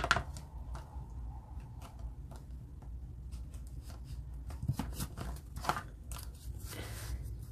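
Small paper cash envelopes being flipped through in a plastic box, with soft paper rustles and light taps and clicks, over a steady low hum.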